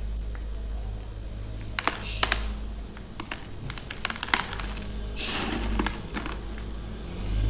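Broken pieces of compressed baking soda being crunched: a series of sharp cracks and crisp crunches, with a longer crumbling stretch a little after halfway.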